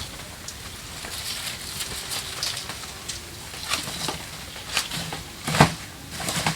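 Irregular rustling and crackling, as of dry plant matter being handled during garden work, with a few sharper snaps, the loudest about five and a half seconds in.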